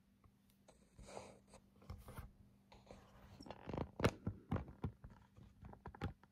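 Handling noise from a phone camera: cloth rubbing and scraping against the microphone, with irregular light knocks and bumps as it is moved about. A faint steady hum lies underneath.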